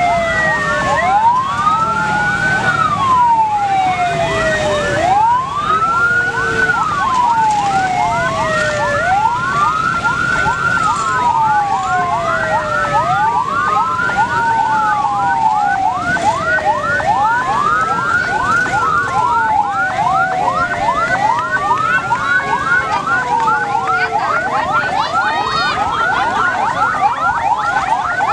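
Several electronic vehicle sirens, including an ambulance's, sounding together: a slow wail rising and falling about every two seconds over a fast yelp, with a few other siren sweeps cutting in.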